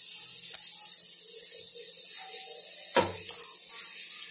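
Spoon knocking lightly against a steel bowl of dosa batter, with one sharp knock about three seconds in, over a steady hiss.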